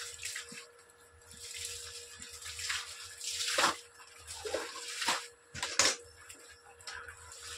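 Clothes being rinsed by hand in a steel basin of water fed by a running hose: irregular sloshing and splashing, with sharper, louder splashes about three and a half seconds in and again near six seconds as a wet garment is lifted and dropped back. A faint steady hum runs underneath.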